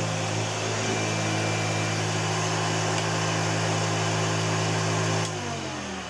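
1975 Hoover Starlight U2002 upright vacuum cleaner running steadily on carpet with a strong motor hum. About five seconds in, it is switched off with a click, and the motor's pitch slides down as it spins to a stop.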